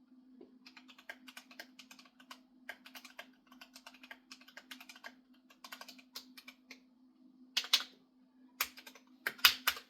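Typing on a GMMK Pro mechanical keyboard: a quick, uneven run of light key clicks, then a few louder, separate keystrokes near the end.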